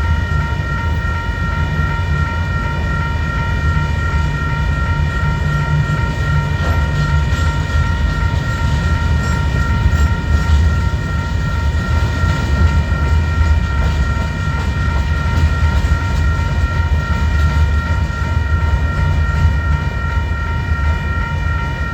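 Union Pacific gravel freight train rolling past, a steady low rumble from the cars on the rails. A steady high-pitched ringing tone runs throughout.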